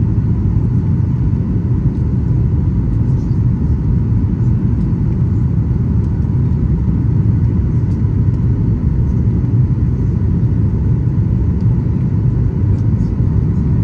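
Cabin noise of a Boeing 737 MAX 8 climbing after takeoff: the steady low rumble of its CFM LEAP-1B engines and the airflow, with a faint steady tone above it.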